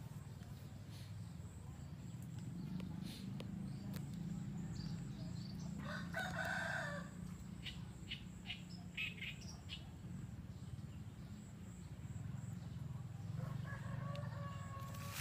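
Bird calls: one call about six seconds in, a few short chirps after it, and a longer call near the end, over a steady low hum.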